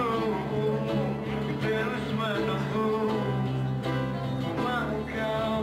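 Acoustic guitar strummed steadily, with a man singing a melody into the microphone over the chords.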